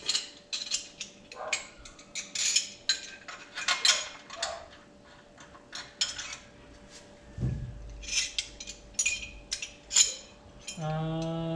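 Metal brackets, spacers and bolts clinking and knocking together as they are handled and test-fitted on an engine, in quick irregular taps. A low rumble comes in about halfway through.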